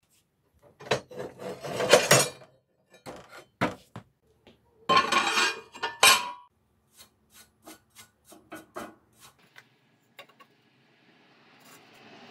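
Rusty steel scrap pieces clattering and scraping as they are handled and laid on a steel welding table, in three loud bursts, then a run of lighter taps and clicks. A faint steady rushing noise starts near the end.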